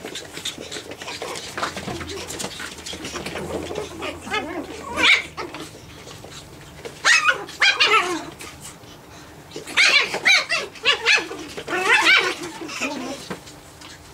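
Nine-week-old Japanese Chin puppies yapping at play: bouts of high-pitched yips and barks that fall in pitch, growing busier in the second half, the longest bout near the end.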